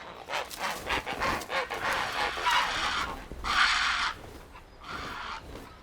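Grey herons calling at a breeding colony: harsh, noisy squawks, with a run of short clicks early on. The loudest call comes about three and a half seconds in.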